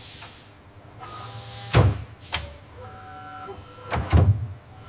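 Three heavy clunks like a car door being shut or latched: one about two seconds in, one half a second later, and the loudest about four seconds in. Between them sit a faint machine hum and a thin high whine.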